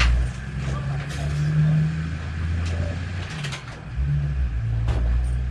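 A low mechanical drone made of several steady low tones, like an engine running, which drops out briefly a little past the middle and then resumes. A few light clicks and knocks can be heard as a bicycle is handled.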